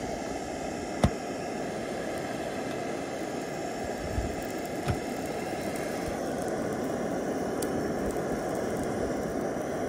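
Iwatani JC cassette gas burner burning steadily under a wire grill, a steady low rushing noise, with one sharp click about a second in.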